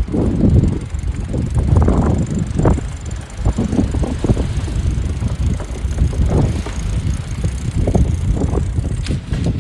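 Wind buffeting the microphone of a handheld phone: an uneven, gusting low rumble that surges and drops every second or so.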